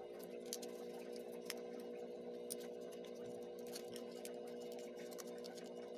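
Small, scattered clicks and taps of stiff paperboard puzzle pieces being handled and slotted together, a few sharper ones in the first half, over a steady hum.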